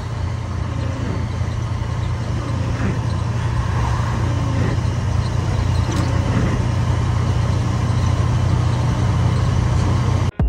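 Scania 113 truck's six-cylinder diesel running steadily on the road, heard from inside the cab as a loud, even low drone with tyre noise from the wet road. The exhaust pipe has a hole blown in it, which makes the truck noisy. The sound cuts off abruptly near the end.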